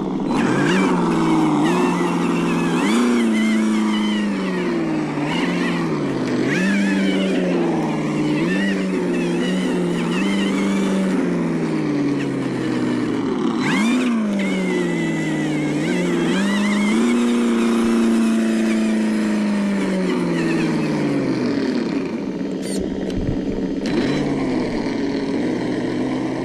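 ESS-One engine sound simulator on a 1/10 scale RC truck, playing a simulated engine that revs up and down over and over as the throttle is worked.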